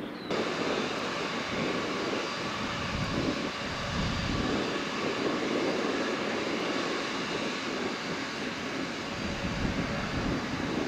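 Airbus A330 freighter's twin jet engines running on the runway: a steady rushing noise with a faint whine, cutting in abruptly just after the start.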